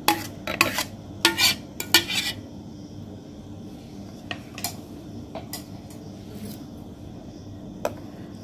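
Metal spoon knocking and scraping against a steel mixer-grinder jar and a ceramic bowl as thick blended mango pulp is emptied out. A quick cluster of clinks comes in the first two seconds or so, then single light clinks now and then.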